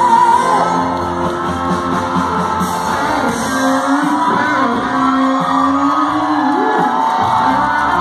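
Live rock-ballad band playing through a concert PA, with electric guitar and a held, bending sung melody.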